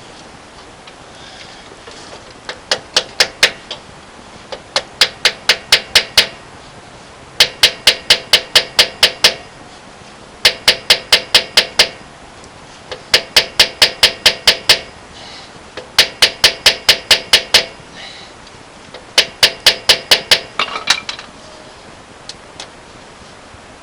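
A hammer rapidly striking steel with a ringing metallic sound, in seven bursts of about five to nine quick blows each, at roughly five blows a second. The work is on broken starter bolts in a truck's engine block.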